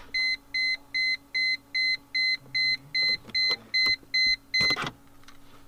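Mercedes-Benz W210 E-Class instrument-cluster warning chime beeping rapidly, about two and a half short beeps a second, then stopping near the end, over a faint steady low hum.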